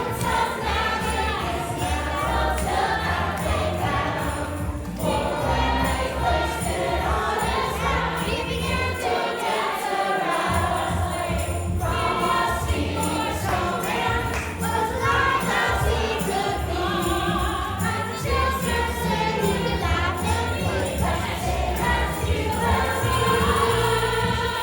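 Christmas carols sung by a group of voices over a backing track with a steady beat, two groups singing different carols against each other in a dueling-carols song.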